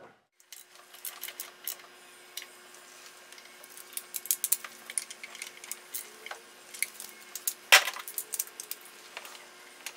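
Scattered light metallic clicks and clinks of hand tools, a ratchet, extension and sockets being handled and worked, with one sharper clack about three-quarters of the way through. A faint steady hum runs underneath.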